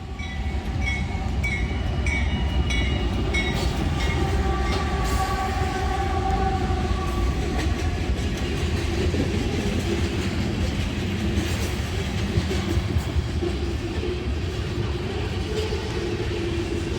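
CSX freight train rolling through a grade crossing with a steady low rumble of locomotive and cars, no horn sounded. A crossing bell dings rapidly, about two strokes a second, for the first few seconds, and a held squeal rises over the rumble for a few seconds after that.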